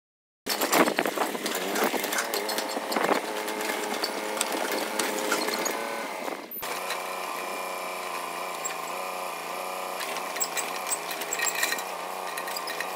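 B12 mini excavator running under load as its bucket digs into hard, compacted gravel ground. The machine noise cuts off sharply about six and a half seconds in and comes straight back, steadier and a little quieter.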